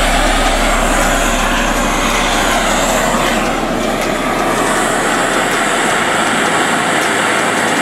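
Handheld LPG torch flame hissing steadily as it heats the joint of a bandsaw blade for silver soldering.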